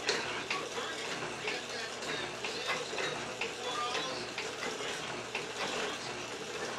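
Small FORD benchtop metal shaper running: a steady motor and drive hum, with a short click about twice a second as the ram strokes back and forth.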